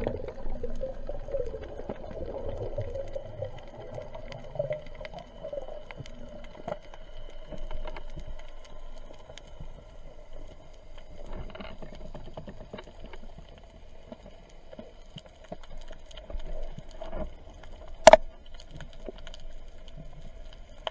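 Underwater sound picked up by a diver's camera: a steady hum with many scattered small clicks and crackles, a rougher low rumble in the first few seconds, and one sharp, loud click about eighteen seconds in.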